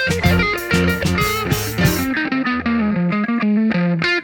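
Rock band music with electric guitar, bass and drums in an instrumental passage. About halfway the drums and cymbals drop out, leaving a guitar and bass line playing alone.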